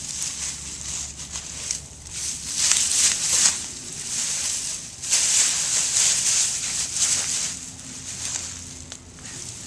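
Dry fallen leaves rustling and crunching in irregular bursts as a dog pushes through them with its nose and feet.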